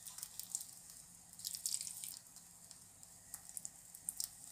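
Beaten egg frying in a little oil in a nonstick pan: a faint, steady sizzle with scattered fine crackles.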